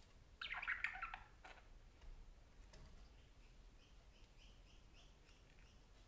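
Parakeet chattering: a burst of quick chirps lasting about a second, then a faint run of short, evenly spaced chirps, about three a second.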